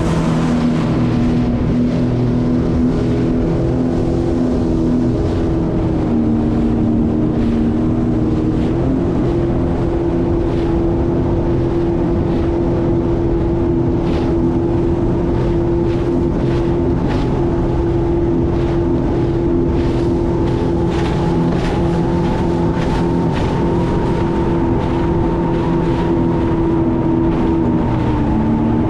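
2020 Sea-Doo FishPro personal watercraft's Rotax 1630 ACE three-cylinder engine running steadily under way, its pitch stepping up about nine seconds in and dipping briefly near the end, with scattered short knocks midway.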